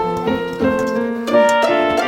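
Background music: a piano melody with single notes and chords.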